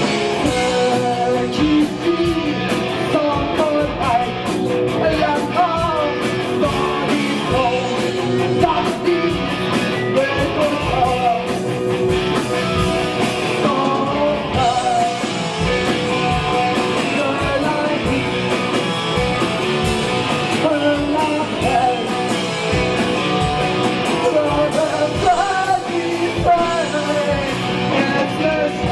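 Hard rock band playing live: electric guitars and drums driving on, with a singer's voice over them.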